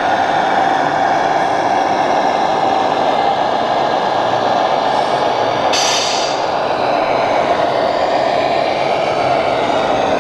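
Radio-controlled Mercedes-Benz Actros truck's sound module playing a steady diesel-engine drone as the model drives. About six seconds in there is a short, sharp hiss like an air-brake release.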